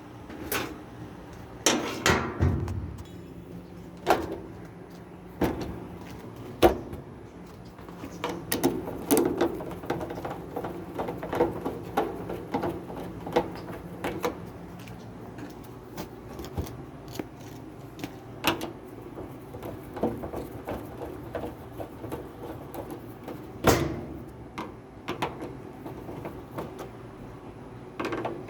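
Irregular clunks, knocks and clicks of metal panels and parts being handled and fitted on a Roper top-load washing machine during reassembly. The loudest knocks come about two seconds in and again about twenty-four seconds in, and a faint low hum runs under the first half.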